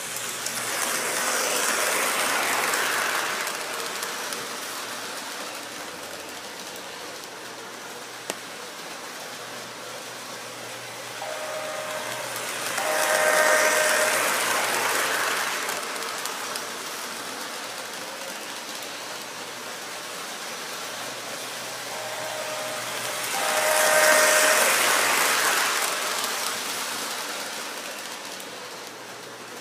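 O-gauge model diesel locomotive and cars running on three-rail track, the wheel rumble swelling and fading as the train passes close three times, about eleven seconds apart. On the second and third passes the locomotive's electronic horn sounds as it approaches.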